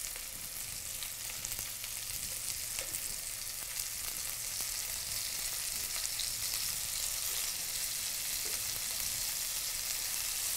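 Flour-coated shrimp frying in hot butter and oil in a pan: a steady sizzle with faint scattered crackles, growing a little louder as more shrimp are laid in.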